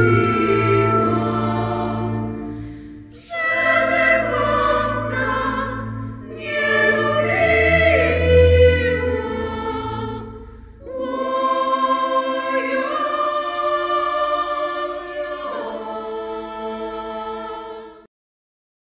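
A women's choir in Polish folk style singing a slow song in several long phrases, a young woman's voice among them. The singing cuts off suddenly near the end.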